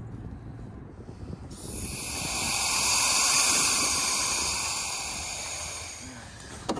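Nitrogen blowing out through the open end of a cut copper refrigerant line: a hiss that starts about a second and a half in, swells, then fades away over several seconds. It purges metal flakes from the pipe after deburring.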